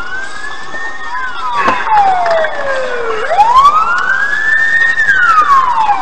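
Police car siren wailing, its pitch sweeping slowly up and down in a repeating cycle of about three and a half seconds.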